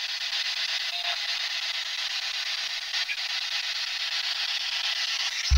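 Steady, even hiss with no low sounds under it, most likely the recording's own noise in a quiet spot, and a faint short tone about a second in.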